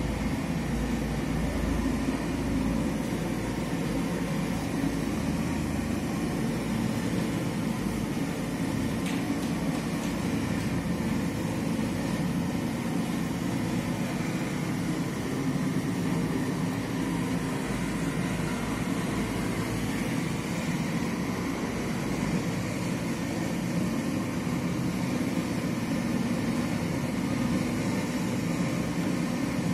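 Gas-fired heat cannon running steadily, its burner and fan blowing hot air onto stretch-ceiling film to soften it so the film can be stretched and tucked into the wall profile.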